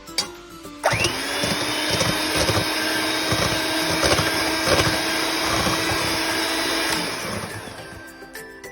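Electric mixer beating an egg: it starts up about a second in with a brief rising whine, runs steadily, then is switched off and winds down near the end.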